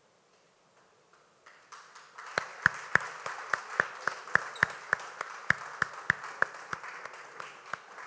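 Audience applause that starts about a second and a half in, with one pair of hands clapping close by and loud, about three claps a second, easing off near the end.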